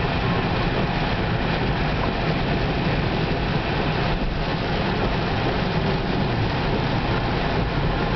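Steady road noise inside a car driving on a wet highway in heavy rain: tyres on the wet pavement, with rain on the car.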